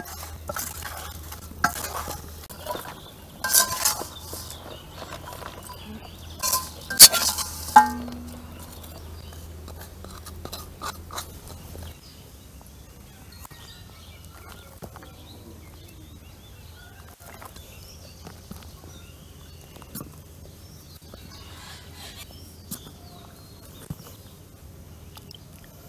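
Metal spoon scraping and clinking against a steel plate of fried potato wedges, with a handful of sharp ringing clinks in the first eight seconds. Later, only faint scrapes and ticks as a raw potato is peeled with a knife.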